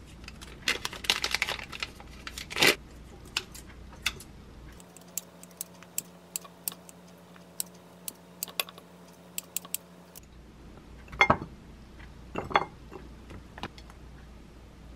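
Plastic packaging crinkling as a wrapped rice cake is opened, then kitchen scissors snipping the chewy rice cake into a ceramic bowl in a run of quick, sharp clicks. A couple of louder knocks follow near the end.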